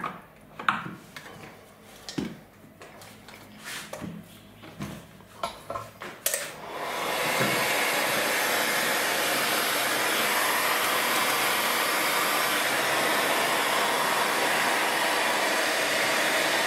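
A few clicks and knocks of tools being handled, then about six and a half seconds in an electric heat gun switches on and blows steadily, heating the plastic bottle so it shrinks onto the canopy plug.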